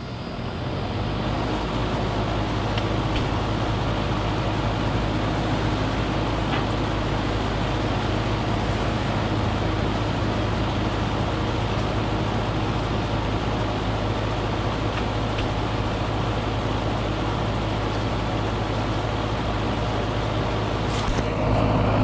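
1993 Janitrol 3.5-ton heat pump outdoor unit starting up in cooling mode: the compressor and condenser fan come up over the first second or two, then run steadily with a low hum.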